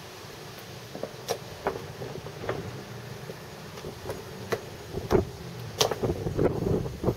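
Irregular clicks and knocks over a low rumble and a steady hiss. They begin about a second in and come thicker and louder near the end.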